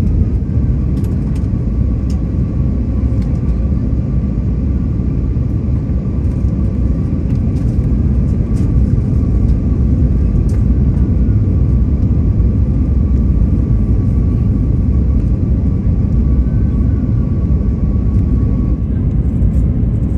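Steady cabin noise inside an Airbus A321neo: a loud, low rumble of engines and airflow, with a faint high steady tone under it that stops near the end and a few faint clicks.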